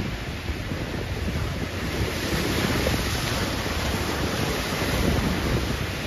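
Ocean surf breaking and washing over rocks, with wind buffeting the microphone. The hiss of the surf grows louder about two seconds in.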